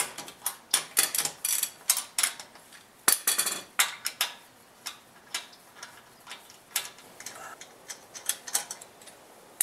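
Ratchet clicking in quick runs as lug nuts are backed off a car's front wheel, then sparser metallic clicks and clinks as the loosened lug nuts are spun off by hand and set down.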